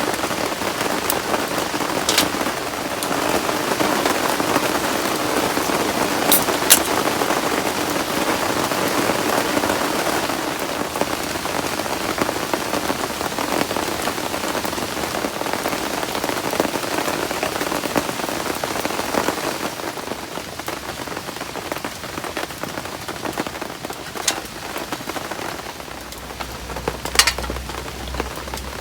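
Heavy rain falling steadily, a dense even patter, with a few sharp clicks and knocks here and there. It eases a little about two-thirds of the way in.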